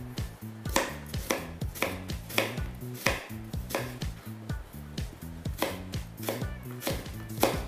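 Kitchen knife slicing red onions on a wooden cutting board, each cut ending in a knock of the blade on the board, at a steady pace of about two to three cuts a second.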